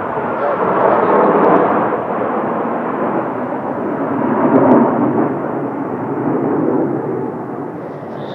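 Jet noise from Blue Impulse Kawasaki T-4 trainers flying past: a loud, continuous rumble of their twin turbofan engines. It swells twice and eases off near the end.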